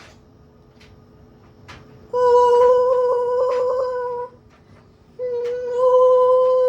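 A voice humming one long steady high note, then a second after a short break, each lasting about two seconds, with a few faint clicks before.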